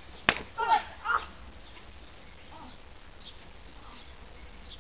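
A sharp smack of a blow landing about a third of a second in, followed at once by two short yelps falling in pitch, then a few faint short cries.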